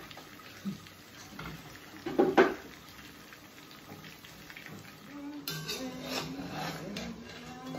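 Wooden spoon stirring in a metal saucepan, with a quick cluster of loud knocks against the pot about two seconds in. About five and a half seconds in, hymn music with singing starts.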